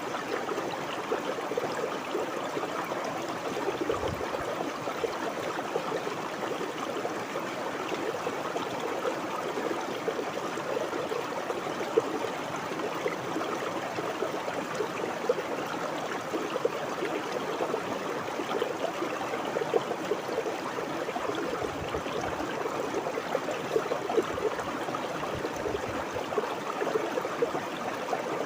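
Water flowing and burbling in a stream: a steady babbling with small splashes and gurgles.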